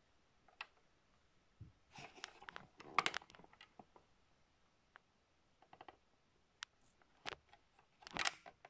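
Handling noise as the camera is repositioned: scattered light clicks, taps and brief rustles, with a busier cluster about three seconds in and another near the end.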